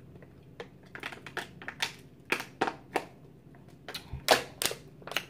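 Thin plastic water bottle crinkling and crackling in the hand as it is drunk from and handled: a run of irregular sharp clicks, loudest about four seconds in.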